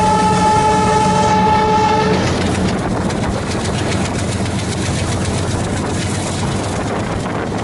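Air horn of a WDG-3A Alco diesel locomotive holding one steady note, cutting off about two seconds in. After that the train runs on: wheels clicking over rail joints over the engine's low drone.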